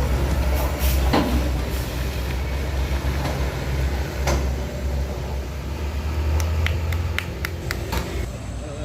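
Heavy truck's diesel engine rumbling past, with a deep steady drone that eases near the end. A few sharp clicks or rattles come from the vehicle late on.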